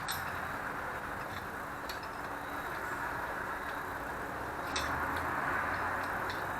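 Steady workshop background hiss with three faint metallic clicks of tools and parts being handled on a stripped-down engine.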